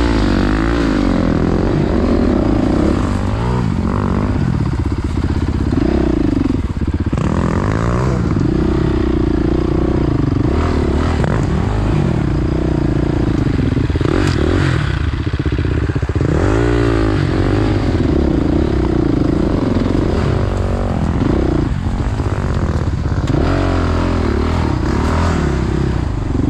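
Off-road dirt bike engine revving, the throttle opened and closed over and over so the pitch keeps rising and falling, working on a climb up a steep trail.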